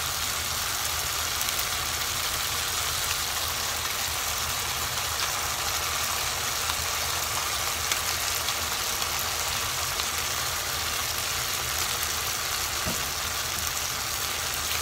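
Ground cashew-raisin paste frying steadily in hot oil in a non-stick pan, over a steady low hum. There is a light tap about eight seconds in as whipped curd is spooned into the pan.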